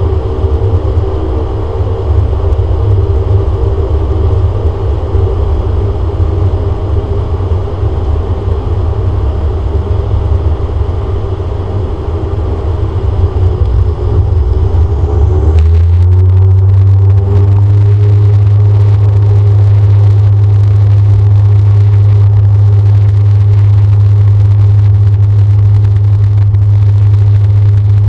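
Cabin sound of a DHC-8-Q400's Pratt & Whitney PW150A turboprops and six-bladed propellers, a steady drone at first. About halfway a brief rising whine comes as the engines spool up. The propeller hum then settles into a louder, steady low drone at takeoff power.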